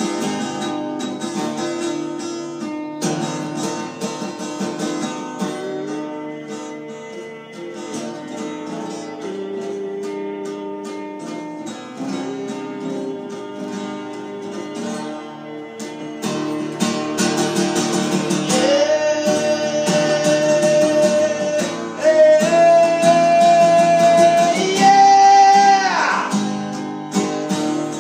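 Acoustic guitar being strummed and picked. About halfway through it gets louder and a voice joins with long wordless held notes that step up in pitch three times, then breaks off shortly before the end.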